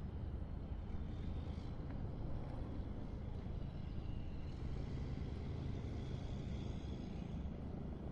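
Oceanfront ambience: a steady low rumble of surf and distant traffic, with faint high tones coming and going.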